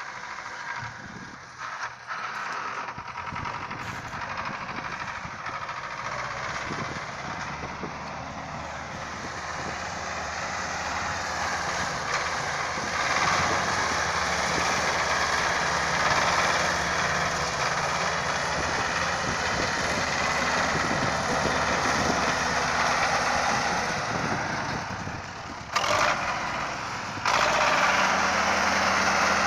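An engine running steadily, getting louder about twelve seconds in, with a short dip near the end.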